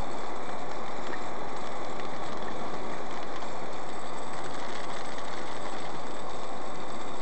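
Steady road noise of a vehicle driving at speed: tyre and engine noise heard from inside the cabin, even throughout.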